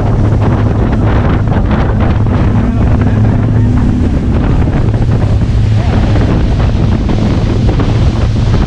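Motorboat engine running steadily at speed with a low, even hum, under heavy wind buffeting on the microphone and rushing water.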